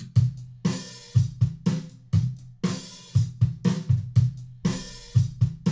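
Rock drum-kit loop from Cubase's loop library playing back at about 145 BPM. Kick and snare keep a steady beat under hi-hat, with a cymbal crash about every two seconds.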